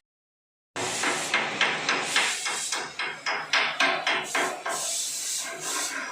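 Hammer striking repeatedly, about three blows a second, starting just under a second in after a moment of dead silence and then giving way to a hissing noise.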